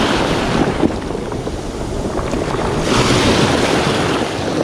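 Sea surf breaking and washing up over a pebble beach, a fresh wave surging in about three seconds in, with wind buffeting the microphone.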